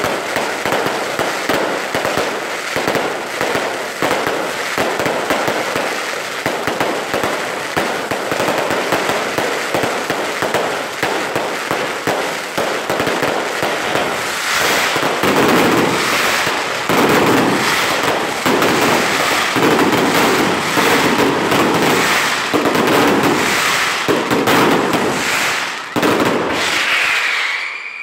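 Fireworks going off in rapid succession: a continuous crackle of many small bangs that grows louder and heavier about halfway through, then falls away near the end.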